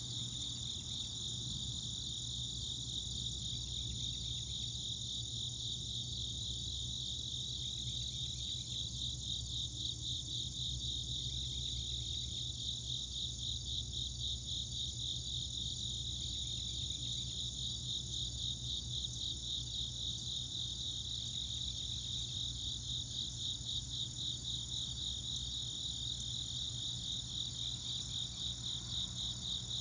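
Steady chorus of late-summer insects chirring in the trees, a fast, even pulsing that carries on without a break.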